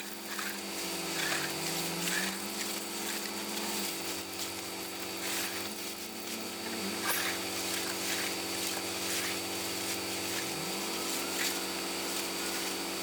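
Engine running steadily, its speed dropping about four seconds in and climbing back up near the end, with a few faint clicks.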